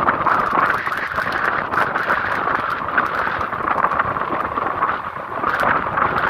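Rain falling steadily: a dense hiss with many separate drops ticking through it.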